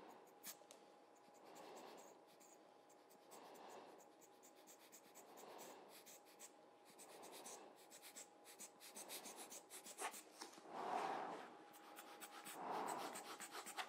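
A rubber hand air blower (Giotto rocket-style lens blower) squeezed over and over, giving faint puffs of air about every two seconds that get a little stronger near the end, with light ticking in between. It is blowing wet alcohol ink across the paper.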